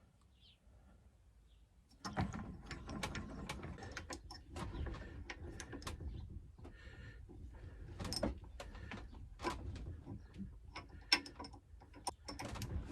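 Pen parts being pressed together on a lathe fitted with 3D-printed press tools. Starting about two seconds in, there are irregular mechanical clicks and creaks as the press is worked and the clip is forced home.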